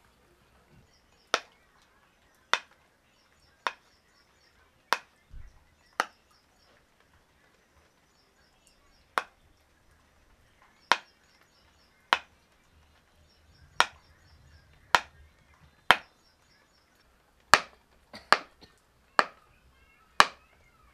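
Chef's knife chopping fresh paneer on a wooden cutting board: sharp knocks of the blade striking the board, about fifteen in all, roughly one a second, with a pause of about three seconds after the first five.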